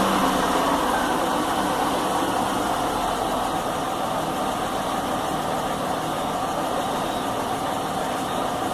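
Chevy Venture's 3.4-litre V6 idling steadily just after starting, its speed settling down in the first second. This is the rough idle the owner is chasing, where it feels like it wants to stall.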